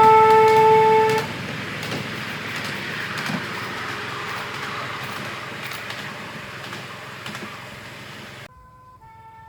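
Miniature railway Class 35 diesel locomotive sounding its two-tone horn, which ends about a second in. The train then runs on along the track with a rumbling rattle and scattered clicks, slowly fading. Near the end the sound cuts off abruptly and the horn begins again, fainter.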